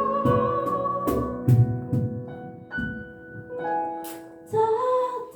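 A cappella vocal group singing held chords over vocal-percussion beats; about two seconds in the beat drops out and the voices thin to a few soft notes, then the full group comes back in near the end.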